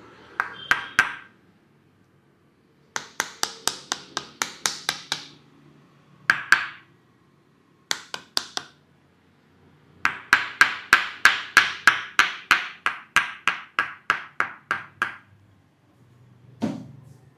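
Hands striking the body in quick massage percussion strokes: runs of sharp claps at about four to five a second, the longest run lasting about five seconds, with short pauses between runs. A single duller thump comes near the end.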